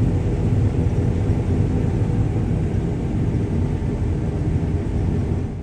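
John Deere combine harvester running steadily under harvest load, heard from inside the cab: a dense, even machinery rumble.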